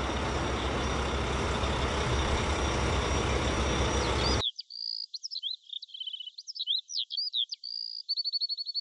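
A steady, rumbling vehicle-like engine noise that cuts off abruptly a little past halfway, followed by a quick run of high bird chirps, trills and short whistles.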